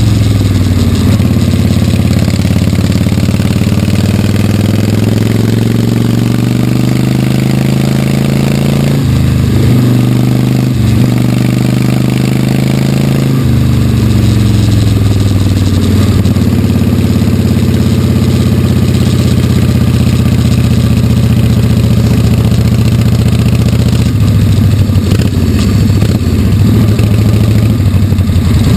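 1946 Harley-Davidson WL's 45-cubic-inch flathead V-twin running under way at low to moderate speed, its engine note falling and rising with the throttle. The note dips briefly twice, about nine and eleven seconds in, and settles lower about thirteen seconds in.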